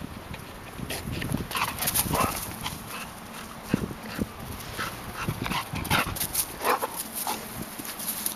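Golden retriever making short, irregular breathy sounds and whines while it runs about.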